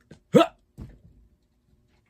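A single sharp hiccup-like yelp that sweeps quickly up in pitch about a third of a second in, followed by a fainter one. It is the last of a run of such yelps about half a second apart.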